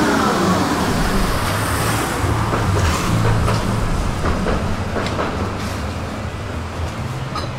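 Electric tram slowing down: its motor whine falls away in the first moment, then a low rumble with scattered clicks and knocks as it comes gradually to a halt.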